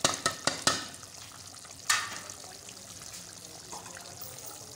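A spoon knocks sharply against the cooking pot several times in the first second and once more about two seconds in. Underneath, a pot of chicken and potato curry with yogurt bubbles steadily as it simmers down.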